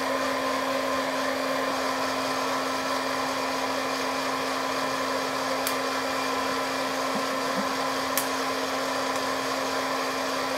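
Hot-air popcorn popper used as a coffee roaster, its blower fan and heater running with a steady hum. Two sharp cracks stand out, one a little past halfway and another near the end: coffee beans popping at first crack.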